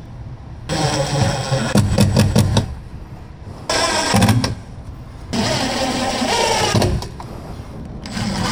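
Power tool cutting through a wall opening in several short runs of a second or two each, stopping and starting again.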